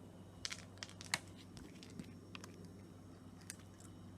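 Sparse light clicks and crinkles as Iams cat treats are handled and taken out of their bag, over a low steady hum.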